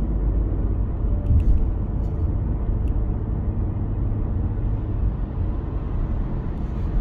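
Car driving at road speed, heard from inside the cabin: a steady low rumble of tyres and engine, with a brief louder bump about a second and a half in.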